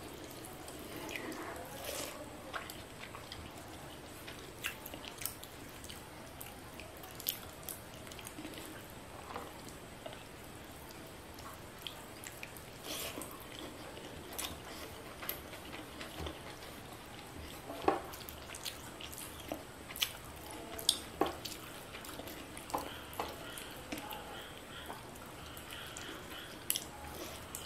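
Wet eating sounds: fingers mixing rice with fish curry on a plate and chewing, with irregular sharp wet clicks and smacks, a few louder ones past the middle.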